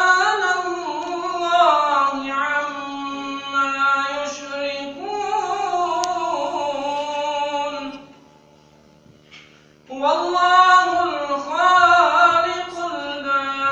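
A man's solo Quran recitation (ašare) in a melodic, melismatic chant. Long held notes wind up and down, break off for a pause of about two seconds past the middle, then resume.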